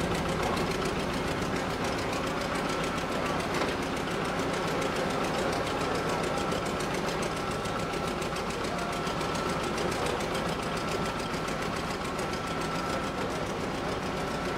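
A large engine running steadily, with a fast, even throb and a thin, steady high whine over it.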